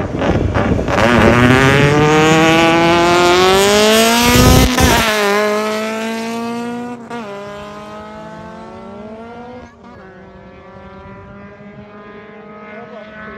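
Drag race car launching from the start line and accelerating hard, its engine pitch climbing and then dropping back at three gear shifts. The engine grows fainter as the car pulls away down the strip.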